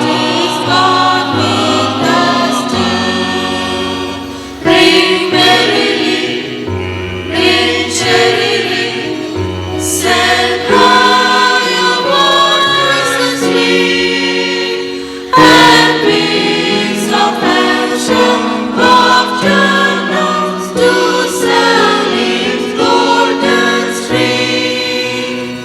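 Church choir singing a Christmas carol in several parts, with sudden loud entries about five and fifteen seconds in.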